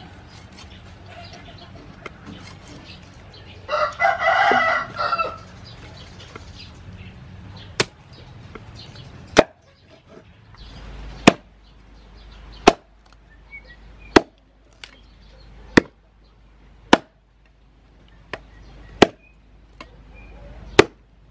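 A meat cleaver chopping pork ribs on a wooden chopping board: about eleven sharp chops, roughly one every second and a half, starting about eight seconds in. Before the chopping, about four seconds in, a rooster crows once.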